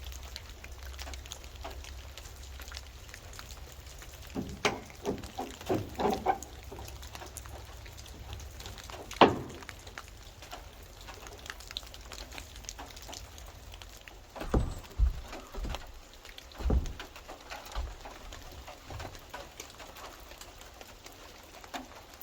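Irregular knocks and taps, the sharpest about nine seconds in, over a faint crackling hiss.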